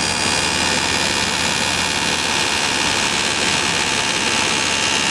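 6.7-litre Cummins inline-six turbo-diesel idling just after a cold start in sub-zero cold, heard from inside the cab: a steady low run under a steady hiss with a thin whine.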